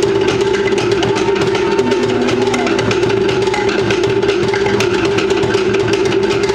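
Polynesian drum ensemble playing fast, dense drumming with a steady driving pulse.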